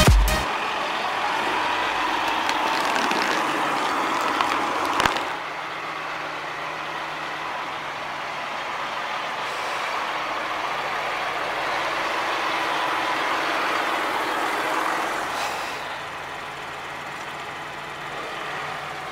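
John Deere tractor's diesel engine running steadily as the tractor moves about, with a single sharp knock about five seconds in.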